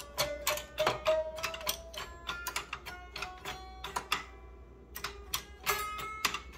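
Homemade 31-TET clavichord strung with guitar strings, played note after note: metal tangents strike the strings, each note a sharp click followed by a short ringing tone, like a cross between a banjo and a typewriter. The playing pauses briefly about four seconds in, then a few more notes sound.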